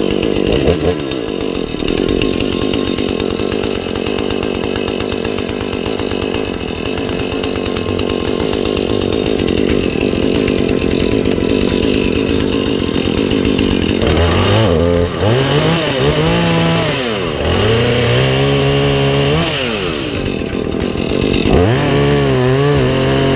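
Husqvarna two-stroke chainsaw cutting up the limbs of a fallen pine tree. The engine runs steadily for the first half, then about two thirds of the way in revs up and down several times as the throttle is worked through the cuts.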